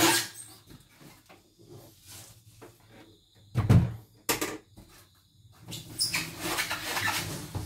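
Handling knocks as a portable embroidery machine is brought in and set down on a wooden workbench, with a heavy thump a little under four seconds in and a click just after. Near the end comes about two seconds of rustling as the packing box is handled.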